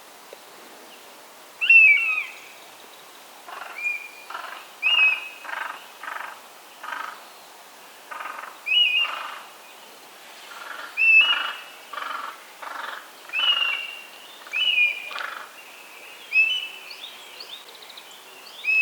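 A pair of eastern buzzards calling in courtship: repeated short mewing calls with a falling end, about every one to two seconds. Between them runs a series of short, rougher calls about twice a second.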